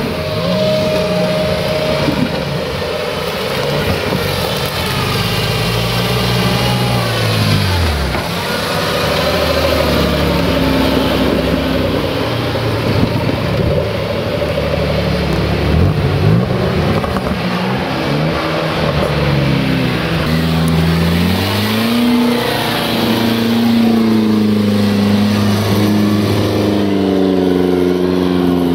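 Extreme off-road vehicles, modified 4x4s and a tube-frame buggy, revving their engines hard, the pitch rising and falling again and again.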